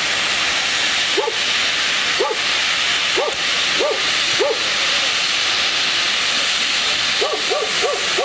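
Loud steady hiss of gas escaping from a gas pipe damaged when a bus crashed into it. A dog barks over it, single barks about a second apart, then a quicker run of about four barks near the end.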